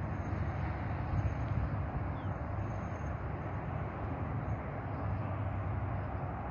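Steady low outdoor rumble with wind buffeting the microphone, unchanging throughout.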